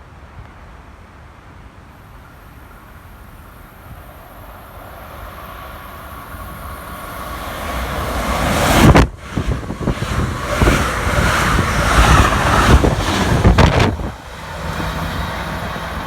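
Passenger train approaching, growing steadily louder, then passing close by, loud for about five seconds with clattering from its wheels, before the sound drops back near the end.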